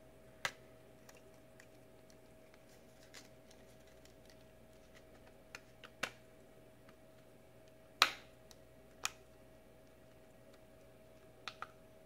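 A few scattered sharp clicks and snaps from a 5th-gen iPod Video's case being pried open by hand. The loudest snap comes about eight seconds in, and a quick pair near the end.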